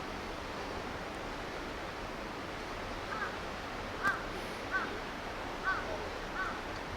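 Steady rush of a river, with a crow cawing about five times in a row from about three seconds in, each caw under a second apart.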